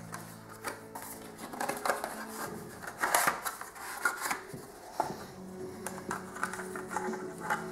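A small cardboard SSD box being handled and slid open by hand: irregular scraping, rustling and clicking of card, loudest about three seconds in.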